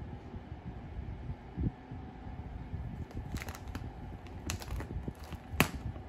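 A plastic chip bag crinkling in a few short, sharp crackles in the second half, the loudest near the end, as an Indian ringneck parakeet grabs at it with its beak. A low, uneven rumble runs underneath.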